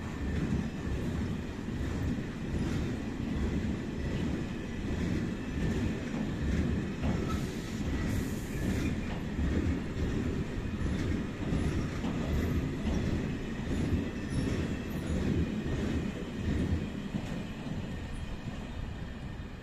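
Loaded two-deck car-carrier freight wagons rolling past, their wheels rumbling and clattering on the track with a faint high wheel squeal. The noise eases off near the end as the last wagons go by.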